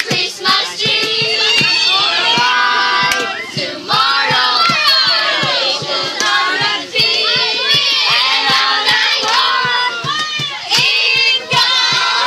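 A group of teenagers singing and shouting loudly together over a quick beat of hand slaps on a wooden box drum.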